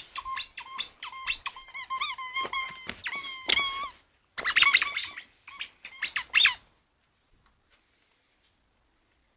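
Rubber squeaky dog toy squeaked over and over in quick succession as a Border Collie chews and bites it. There are rapid runs of high squeaks, then two shorter bursts, and the squeaking stops about seven seconds in.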